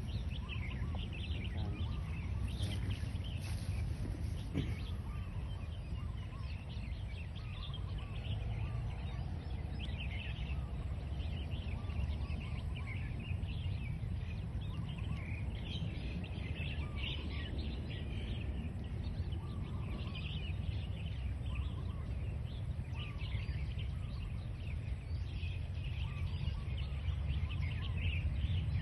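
Birds chirping over and over throughout, over a steady low rumble of outdoor background noise.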